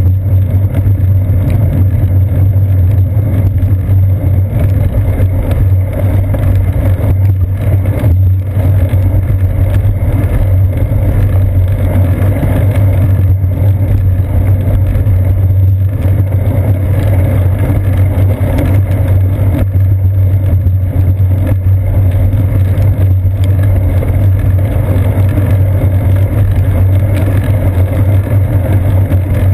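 Steady low rumble of ride vibration and wind picked up by a seat-post-mounted GoPro Hero 2 in its housing as the bicycle rolls along wet pavement.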